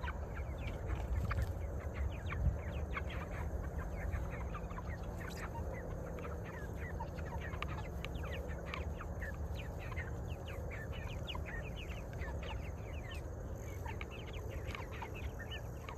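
A flock of meat chickens peeping and clucking: many short, overlapping chirps scattered throughout, over a steady low rumble.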